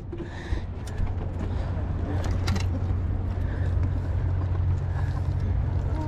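Boat motor running with a steady low hum over water and wind noise, with a couple of short light knocks.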